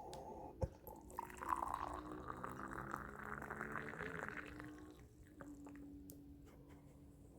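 Liquid being poured for about three seconds, starting about a second in, just after a short knock.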